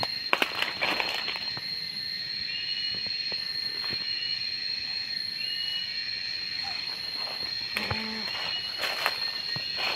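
Steady high-pitched drone of insects, with short high chirps about once a second. A few crunches of footsteps on dry leaf litter come in the first second.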